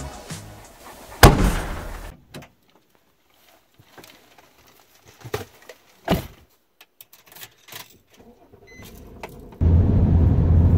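Inside a Nissan car: a loud thump about a second in, then a quiet stretch with a few scattered clicks and knocks. Near the end the steady low rumble of road and engine noise inside the moving car's cabin starts suddenly.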